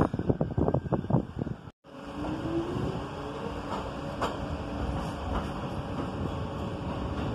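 Gusty wind buffeting the microphone, cut off suddenly under two seconds in. Then an NYC subway F train of R46 cars pulling out of an elevated station: a steady rumble with a rising motor whine as it picks up speed and a few clicks of wheels over rail joints.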